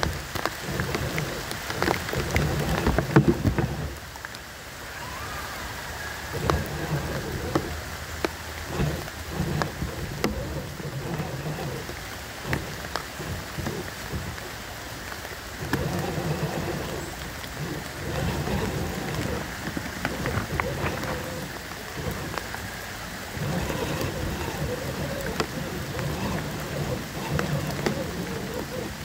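Electric motor and gears of an RC crawler whining in bursts as it drives, stopping and starting several times, over a steady crackle of tyres on wet twigs and leaf litter.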